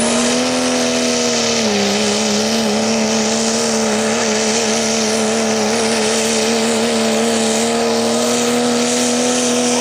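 Diesel pickup truck's engine held at high revs under heavy load while pulling a weight-transfer sled. The note stays steady, dipping slightly about two seconds in and then holding.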